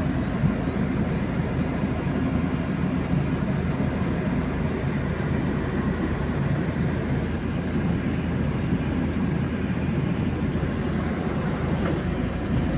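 UAZ Patriot driving, heard from inside the cab: a steady engine and road rumble with a fast, irregular rattle from the manual gearbox and its shift lever. The owner cannot tell what causes the rattle.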